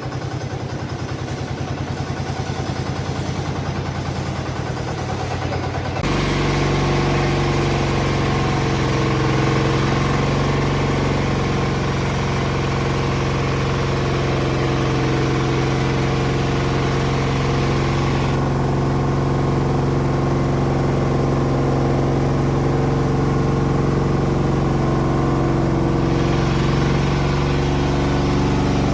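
Horizontal band sawmill running while sawing a large sapodilla log: a steady engine-like pulsing that jumps to a louder, steadier drone about six seconds in.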